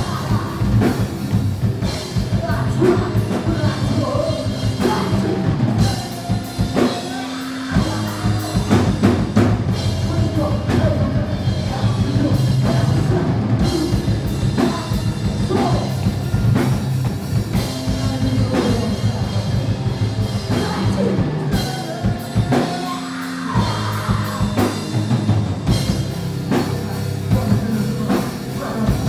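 Metalcore/hardcore band playing live: electric guitar, bass guitar and drum kit with vocals over it. Twice the low end drops back briefly before the full band comes back in.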